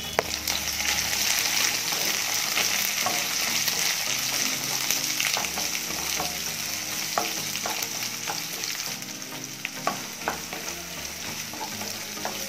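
Sliced onions sizzling in hot oil in a nonstick kadai, along with a tempering of mustard seeds, garlic, dried red chillies and curry leaves, while a wooden spatula stirs them. The hiss is loudest in the first few seconds and eases a little later on, and the spatula makes short taps and scrapes against the pan now and then.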